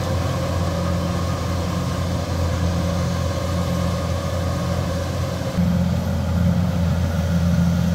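Kubota rice combine harvester's diesel engine and threshing gear running steadily under load as it cuts through a boggy paddy. It gets a little louder about five and a half seconds in.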